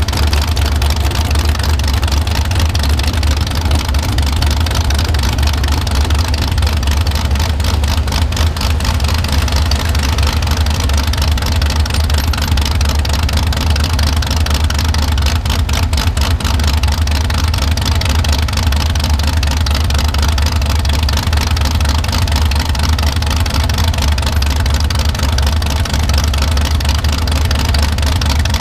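Mini rod pulling tractor engine running loud and steady, with a deep low rumble and no revving up or down.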